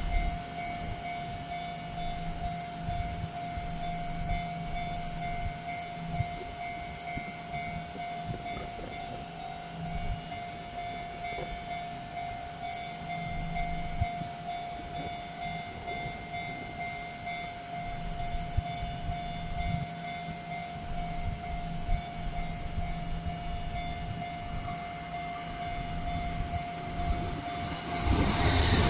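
Level crossing's electronic warning bell ringing on and on, a steady repeating tone. Near the end a train comes up fast and its rumble swells sharply over the bell.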